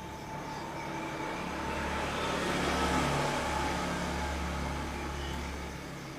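A passing vehicle: a low hum and rushing noise swell to a peak about halfway through, then fade away.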